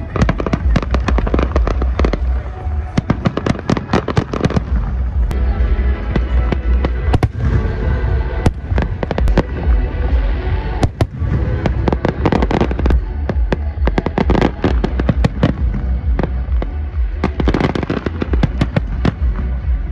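Aerial fireworks display: a rapid, continuous run of bangs and crackles as shells burst, with music playing along.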